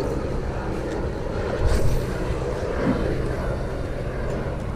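Engine drone of a low-flying aircraft passing overhead, steady and low, over wind on the microphone. A brief knock comes a little under two seconds in.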